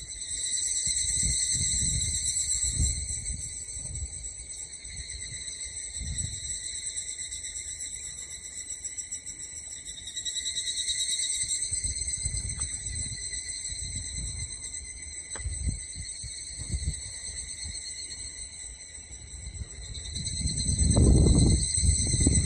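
Chorus of higurashi (evening cicadas, Tanna japonensis) calling: a high, ringing trill with several even overtones that swells and fades in waves, loudest at the start, about ten seconds in, and again at the end. A low rumble comes in near the end and is the loudest thing there.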